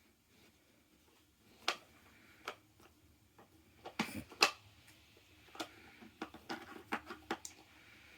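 A dog working a treat puzzle toy, its pieces clicking and knocking as it is nosed and moved: a few single knocks, then a quick cluster, then a run of many clicks near the end.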